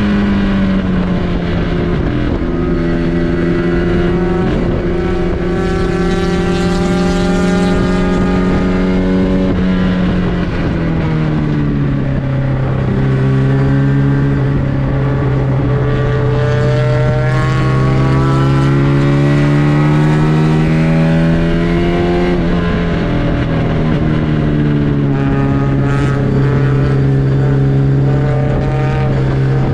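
MGB race car's four-cylinder engine heard from on board, running hard at high revs. The engine note falls steeply about a third of the way in and again about three-quarters through, as the car lifts and shifts down for corners, and climbs steadily under acceleration in between.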